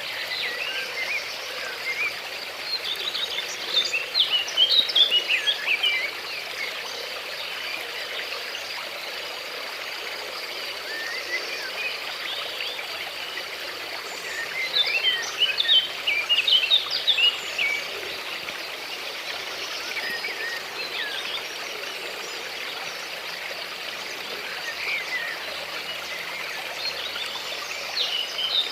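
Outdoor nature ambience: a steady hiss of flowing water under a constant high insect drone, with birds twittering in quick flurries about four seconds in, again around the middle, and near the end.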